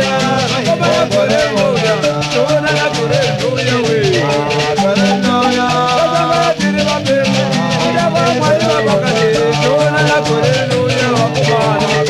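Background music with a fast, even rattling percussion rhythm, held low notes and a wavering melody line.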